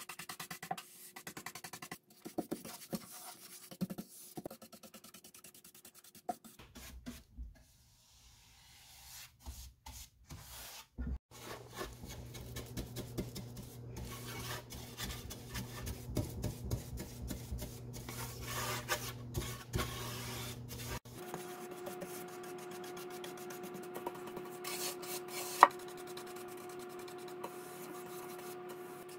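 Paintbrush bristles stroking paint onto bare wood, a quick scratchy rubbing, stroke after stroke. A steady low hum sits underneath, and one sharp tap stands out near the end.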